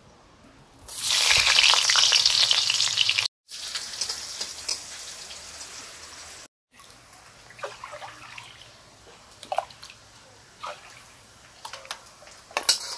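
Onions going into hot ghee in an aluminium kadai: a loud sizzle starts about a second in, then settles to a steadier, quieter frying sizzle. The sound is broken by two short gaps, and a few small knocks of a spatula are heard near the end.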